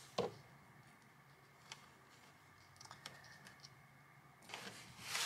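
Faint scattered clicks and taps of fingers pressing peel-and-stick wallpaper into a wall corner, with a soft rustle of the paper building near the end.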